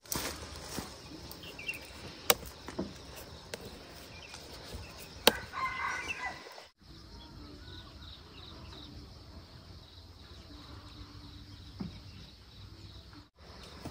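Quiet rural outdoor ambience with a chicken clucking briefly about five seconds in, and a few sharp clicks. The background breaks off twice for a moment.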